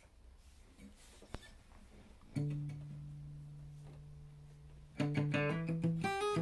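Acoustic guitar: about two seconds in, a single low note is plucked and left to ring, then from about five seconds in a quick run of separately picked notes begins.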